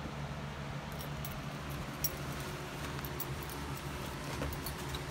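Vinyl record sleeves being handled in a crate, with light scattered taps and rustles, over a steady low mechanical hum.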